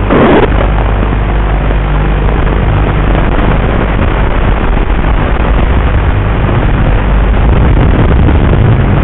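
Eachine H8 micro quadcopter's brushed motors and propellers running steadily in flight, a coarse hissy buzz with a steady low hum. A brief louder burst of noise comes right at the start.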